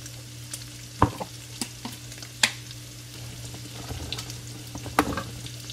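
Kitchen utensils knocking and clicking against cookware: about half a dozen sharp clicks and knocks, the loudest about a second in, over a steady low hum.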